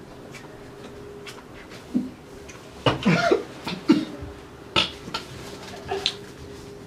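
A man coughing and gagging in several short bouts, the loudest a strained, voiced cough about three seconds in: spicy fajita sauce has gone down the wrong pipe. A sharp click comes near the end.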